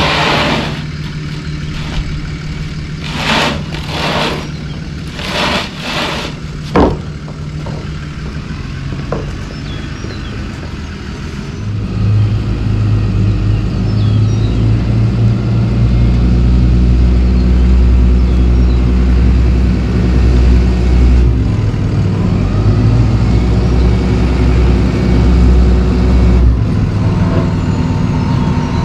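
Dump truck engine running, faint at first and then loud and close from about twelve seconds in as the truck reverses up to the sidewalk. A few short noisy bursts come in the first seven seconds.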